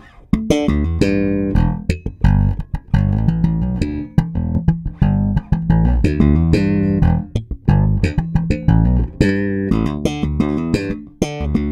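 Electric bass guitar played through a Darkglass Hyperluminal compressor pedal: a continuous run of plucked notes and riffs. The pedal's compression mode is switched during the playing, so the compressed tone changes partway through.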